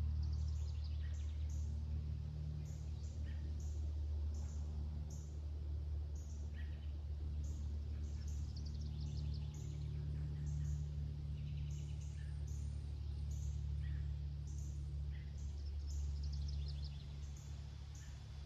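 Small songbirds chirping over and over with high short notes, now and then breaking into falling trills, over a steady low hum.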